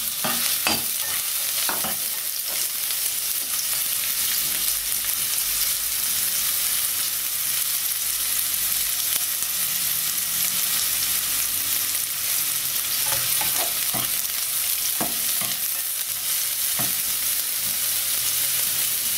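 Sliced ginger, onion, garlic and lemongrass sizzling steadily in hot oil in a nonstick pan, with short scrapes and taps of a spatula stirring them, a few at the start and several more about 13 to 17 seconds in.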